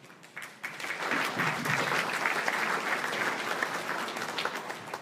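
Audience applauding: dense clapping that swells about a second in and dies away near the end.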